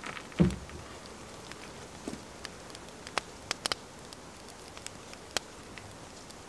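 A single dull knock about half a second in, then a few scattered sharp clicks over a steady faint hiss.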